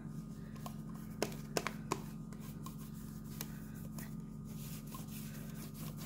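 A hand scrubbing a plastic wall switch plate, with faint repeated rubbing strokes and a few sharp clicks between one and two seconds in, over a steady low hum.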